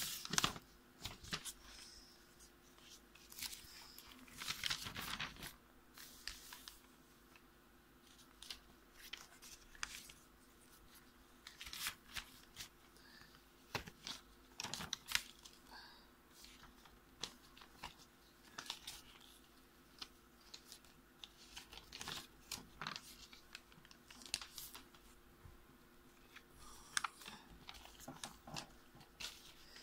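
Graph-paper notebook pages being turned and folded by hand: crisp paper rustles and crinkles coming in irregular bursts.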